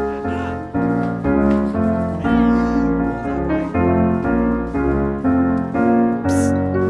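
Background music led by piano or keyboard, moving through a steady run of chords over a bass line, with a new chord about every three quarters of a second.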